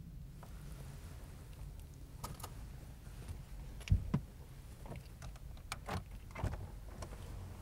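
Scattered clicks and light knocks from someone shifting about in the front seat of a parked car, with two sharper knocks about four seconds in, over a low steady rumble.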